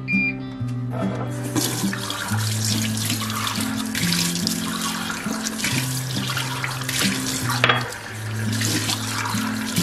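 A kitchen tap runs into a sink as coffee mugs are rinsed under the stream, the water starting about a second and a half in. Right at the start there is one short electronic beep from a washing machine's control panel, and guitar background music plays throughout.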